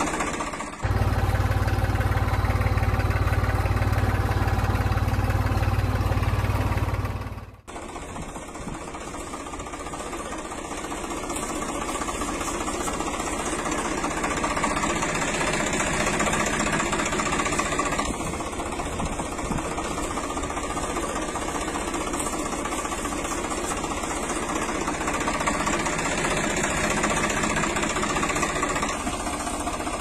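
Small engine of a DIY mini tractor running with a steady, rhythmic knocking chug. A louder passage with heavy low rumble runs from about a second in to about seven and a half seconds, starting and cutting off abruptly.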